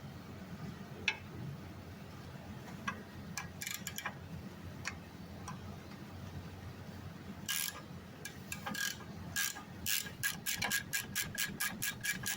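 Hand ratchet wrench clicking as a suspension bolt is turned, with a few scattered clicks and knocks first, then a quick steady run of about five clicks a second over the last few seconds.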